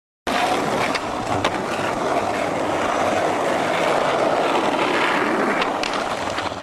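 Skateboard wheels rolling on street asphalt, a steady rumble that starts abruptly just after the start, with a couple of sharp clicks along the way.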